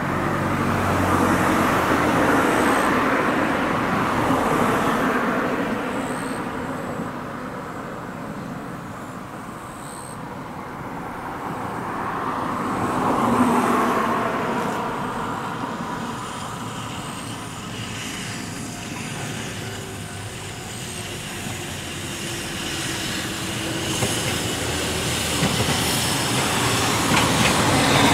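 Ohmi Railway 100-series electric train (set 103F) approaching: its running noise builds over the last few seconds, with a few clicks of wheels over rail joints near the end. Before that, a steady open-air background of distant traffic that swells and fades twice.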